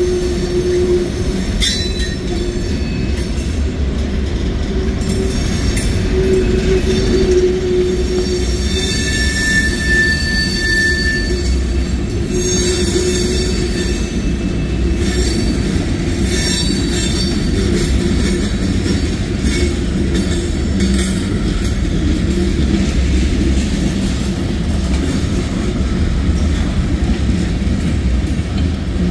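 Freight train tank cars and covered hoppers rolling past, steel wheels running on the rails with a steady rumble. Thin, high-pitched wheel squeal comes and goes over it.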